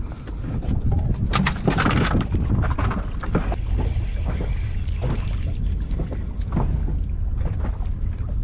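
Wind buffeting the microphone over water lapping against a small fishing boat's hull, a steady low rumble, with scattered sharp clicks and knocks throughout.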